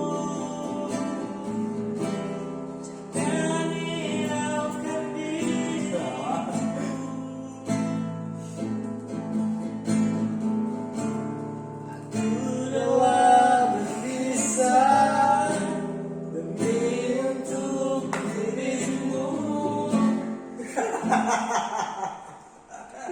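A voice singing a song over guitar accompaniment, with a rougher, noisier stretch near the end.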